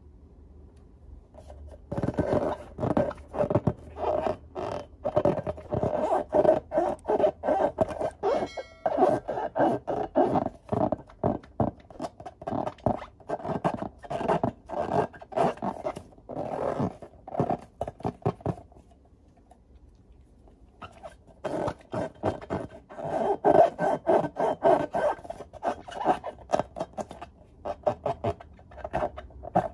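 Hands rubbing and squeezing filled latex balloons: quick runs of rubbery rubbing strokes that start about two seconds in, pause for a couple of seconds past the middle, then start again.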